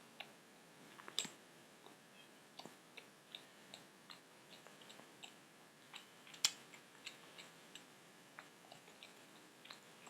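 Close-up chewing of homemade cheese pizza: faint wet mouth clicks and smacks at an irregular pace, with sharper clicks about a second in and again just past the middle.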